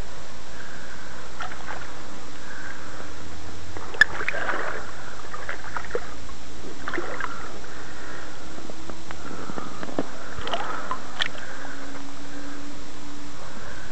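Shallow water sloshing and splashing around hands as carp are released back into the lake, with a sharp knock about four seconds in and another near the end.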